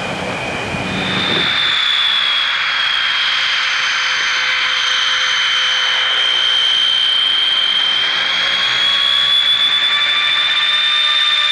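Rolls-Royce Dart turboprop engines of a taxiing Vickers Viscount: a steady, loud, high-pitched whine over a rushing noise. The low rumble of the first second and a half drops away, and from then on the whine is strongest.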